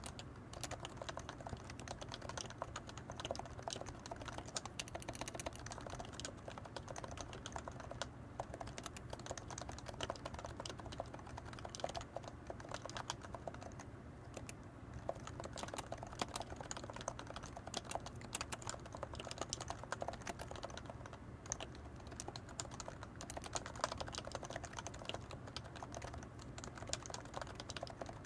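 Typing on a Leopold FC660C keyboard with 45g Topre electrostatic capacitive switches, unlubricated sliders and PBT keycaps: a continuous, rapid stream of keystroke clicks.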